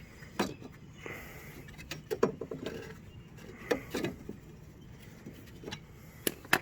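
Scattered handling noises from removing mower blades and bolts: about half a dozen short clicks and knocks, spaced irregularly.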